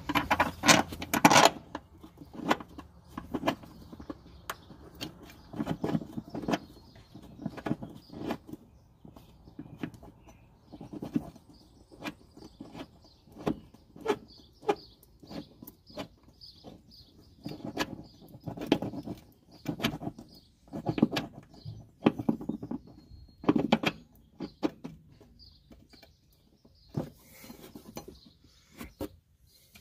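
Irregular metal clinks and knocks as a rear upper control arm and its bolts are handled and fitted into a Honda Accord's rear suspension by hand. A faint high chirping runs through the middle part.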